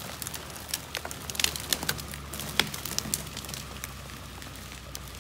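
Dry twigs and branches in forest slash crackling and snapping in quick, irregular cracks, over a faint low hum.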